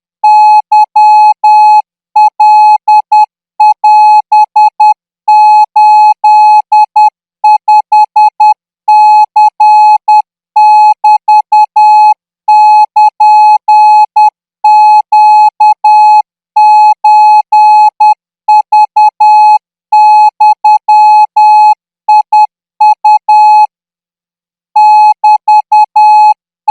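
Thai Morse code practice tone keyed at 14 words per minute: a single steady beep sent in short and long marks, grouped into characters with brief gaps between them. One longer pause comes near the end.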